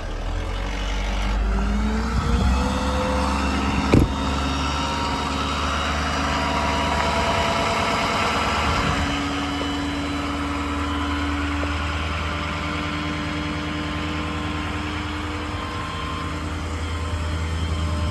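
Ford 6.7 Power Stroke V8 diesel running with the PTO engaged, its speed rising about two seconds in and then holding steady. A single sharp knock comes about four seconds in.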